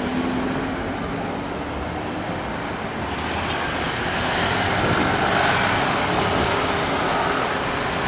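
A bus passing on the road, its engine and tyre noise swelling from about three seconds in and loudest around the middle, over steady traffic noise.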